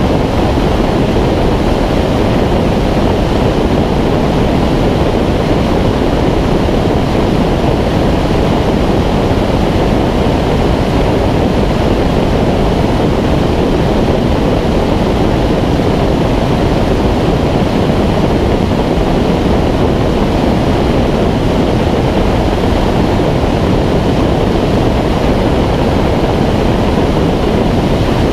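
Steady rush of airflow over a wing-mounted action camera on a Schweizer 2-33 glider in flight, with wind buffeting the microphone. It is a loud, even, low roar with no engine note.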